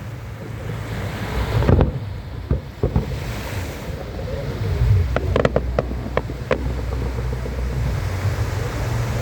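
Fireworks bursting over the sea: one low boom about two seconds in, a couple of single cracks, then a cluster of sharp cracks around five to six seconds. Under them, steady wind rumble on the microphone and surf.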